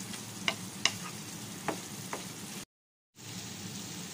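Beef pieces in their stock sizzling steadily in a nonstick frying pan on low flame as the liquid cooks down, stirred with a wooden spatula. A few light clicks of the spatula on the pan come in the first half. The sound cuts out for about half a second about two-thirds of the way through.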